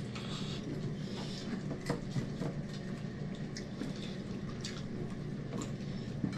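Eating sounds of people eating with their hands: scattered small wet clicks and smacks of chewing and picking at noodles, rice and fried chicken, over a steady low hum.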